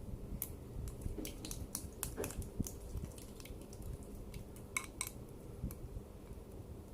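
Slime being mixed together: a run of faint, irregular sticky clicks and small wet pops.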